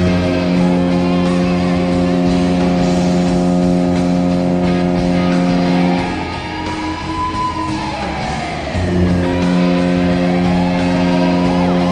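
The Mighty Ducks of Anaheim's 2003 arena goal horn blowing in long, steady blasts over rock music: one blast of about six seconds, a break of about three seconds, then a second blast starting near the end.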